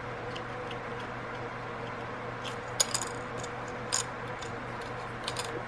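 Light clicks and taps of small thin wooden birdhouse pieces being handled and pushed together, with a cluster of sharp clicks between about two and a half and four seconds in and a couple more near the end.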